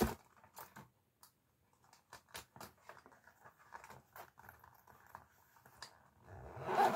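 A fabric pencil case handled on a desk: light rustling and small taps and clicks, with one sharp knock right at the start and a louder rustle near the end.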